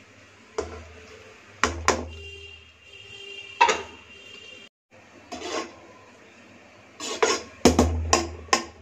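A spoon knocking and scraping against metal cooking pots as boiled rice is spooned over the biryani gravy. The knocks are scattered and come thickest near the end, with a brief ringing tone about two seconds in.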